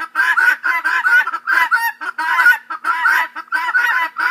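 Helmeted guineafowl calling: an unbroken run of short, harsh, clipped calls at about three or four a second.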